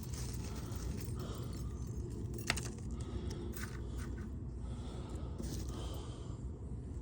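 Faint clinks and scrapes of scrap copper pieces being handled, over a steady low hum, with one sharp click about two and a half seconds in.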